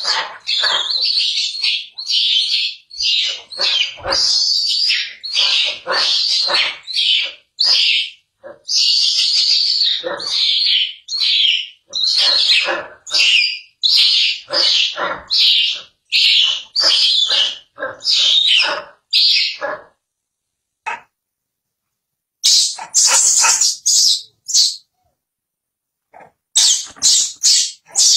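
Baby macaque screaming in a fast run of short, high-pitched shrieks. The screams break off for a couple of seconds about two-thirds of the way through, then start again.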